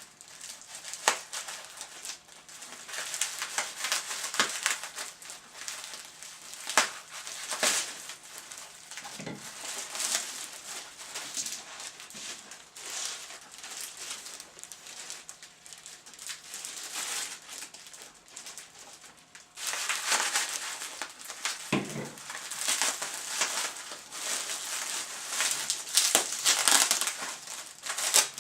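Packaging crinkling and rustling, with sharp clicks and knocks, as fishing rods are opened out of a long shipping tube; it grows louder and busier about two-thirds of the way through.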